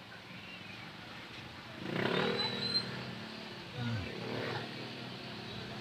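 Motorcycle engines in slow, crowded street traffic: one revs up briefly about two seconds in, and another winds down in pitch about four seconds in, over a low background of traffic noise.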